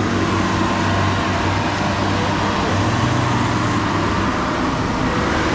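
Vehicle engine running steadily under load during an attempt to drive a Land Rover out of deep mud, under a dense, even rushing noise.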